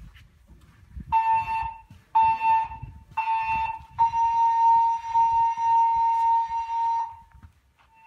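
Siemens MXL-V voice-evacuation fire alarm speakers sounding the temporal-three evacuation tone: three short beeps about a second apart. A steady continuous tone of the same pitch follows and lasts about three seconds.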